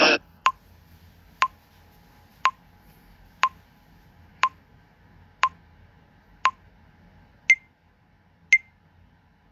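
TikTok's recording countdown timer beeping from a phone, one short beep each second: seven lower beeps, then higher beeps for the last three seconds before recording starts.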